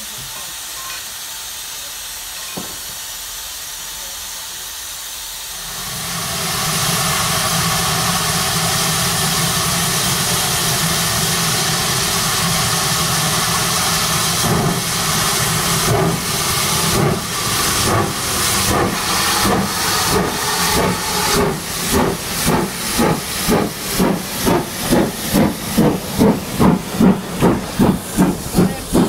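Sound-fitted model steam locomotive starting a heavy train: a loud steady steam hiss sets in about six seconds in, then exhaust chuffs begin and come faster and faster as it pulls away.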